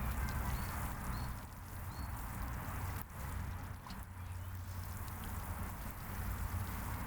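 Water sprinkling steadily onto garden soil, over a low rumble of wind on the microphone, with a few faint bird chirps.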